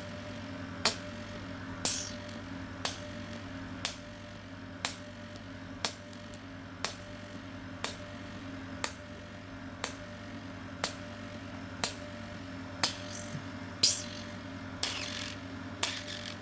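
GL3 oxygen facial machine pulsing in its slow oxygen-infusion mode: a sharp click about once a second, some followed by a short hiss, over a steady machine hum.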